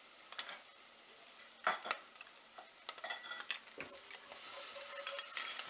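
Spoons scraping and clinking in pans as garlic paste is scraped in and onions are stirred, over a soft sizzle of onions frying in oil. The sizzle grows louder in the last second or two.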